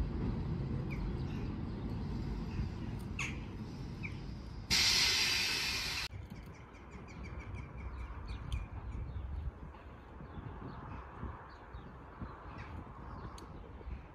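Low rumble of a train or locomotive at the station fading away, broken about five seconds in by a loud hiss that lasts about a second and a half and cuts off suddenly. Crows caw and other birds call over it.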